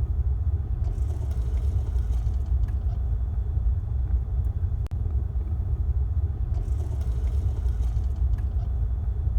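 Tractor engine running steadily while ploughing: a continuous low rumble.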